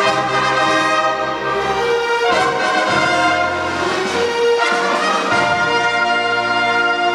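Large school ensemble of strings, guitars, keyboards and wind instruments playing a film-music medley, with brass prominent. Sustained chords shift every couple of seconds.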